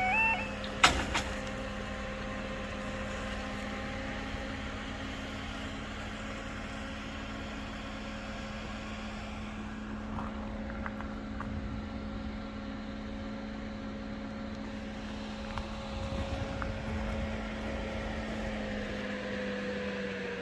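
A level crossing's barrier machinery hums steadily, like an electric motor running, after the barriers have lowered. The motor slides down in pitch and winds down near the end. The crossing's yodel alarm cuts off right at the start, and a single sharp clack follows about a second in.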